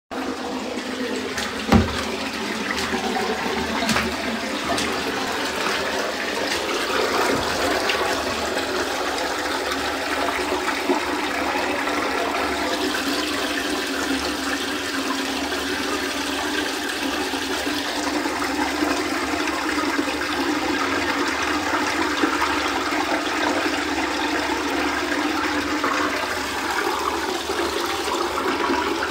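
Water running steadily in a shallow sheet over a flooded tiled floor. A sharp knock comes about two seconds in.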